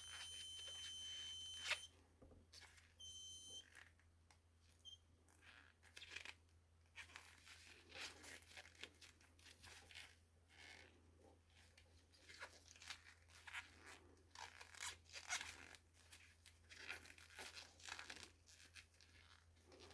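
Homemade continuity tester's buzzer giving a steady high beep that cuts off about two seconds in, sounds again briefly a second later and blips once more, as the connection in the broken power-cord wire comes and goes. After that, faint rustling and scraping of hands working the cord.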